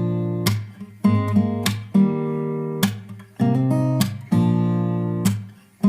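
Intro music: acoustic guitar strumming chords, a fresh strum about once a second left to ring.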